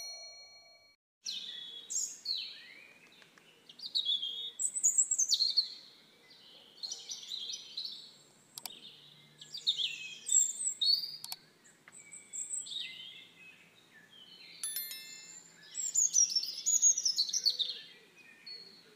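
Songbirds singing and calling: repeated high, warbling phrases that often fall in pitch, some loud and close, with short pauses between them.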